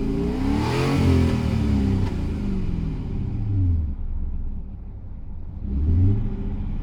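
Audi V8 engine revving: the revs climb to a peak about a second in and fall away over a few seconds, then rise again briefly near the end.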